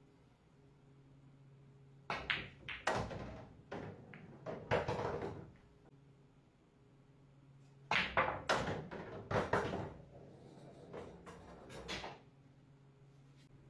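Pool balls clacking: cue strikes and hard ball-on-ball collisions, with balls knocking into pockets. The knocks come in a rapid cluster about two seconds in and another about eight seconds in, with a few lighter knocks later.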